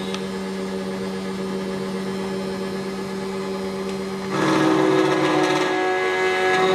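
SEC-E9 CNC key cutting machine running steadily as its cutter mills a Toyota TOY43 key blank, a constant motor hum; about four seconds in the cutting gets louder and harsher as the cutter bites into the metal.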